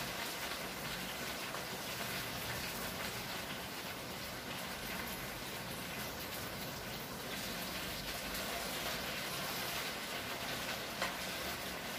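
Freshly washed gongura (sorrel) leaves sizzling steadily in hot oil in a pan with fried green chillies. There is one small tap near the end.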